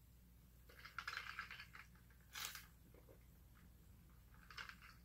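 Faint eating and food-handling noises: a few short, crackly patches of chewing and packaging sounds, about a second in, around two and a half seconds, and again near the end.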